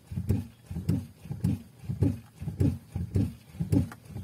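Brake pedal of a VW Golf Mk5 pumped over and over at a steady beat of a little under two presses a second, each press giving a short low groan that falls in pitch. This is the pedal-pumping step of the ABS hydraulic unit air-bleed routine.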